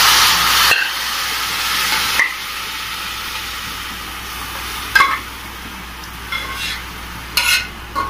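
Meat stock and cooked mutton poured from a pressure cooker into hot masala in a frying pan, sizzling. The sizzle is loudest for the first two seconds, then settles to a steady, quieter sizzle, while a metal spoon scrapes the meat out of the cooker with a few short clinks.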